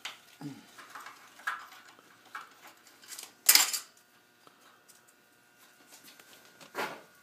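Metal hand tools clinking and clattering as they are picked up and put down on a hard surface, with a louder clatter about three and a half seconds in and another near the end.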